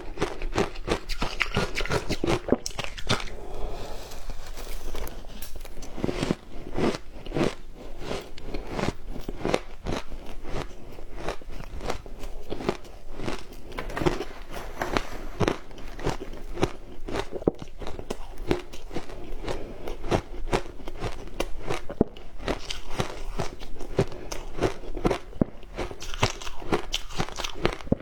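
Frozen matcha ice being bitten and chewed, a continuous run of crisp crunches with several crunches a second.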